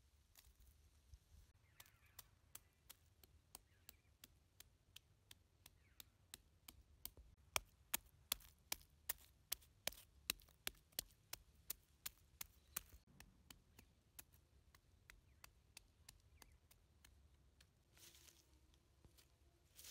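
Wooden pestle pounding walnuts and garlic in a large stone mortar: sharp, even knocks about three a second, loudest in the middle and dying away after about thirteen seconds.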